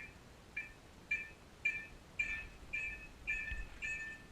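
A bird calling: a steady series of short, evenly spaced chirps, about two a second, each note a little longer than the one before.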